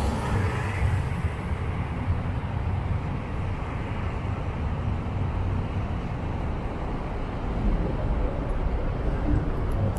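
Steady low rumble of buses and road traffic.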